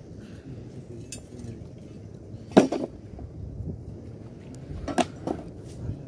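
Rocks clacking together as they are set by hand into a hearth for a cooking fire: a few sharp knocks, the loudest about two and a half seconds in, two more around five seconds in.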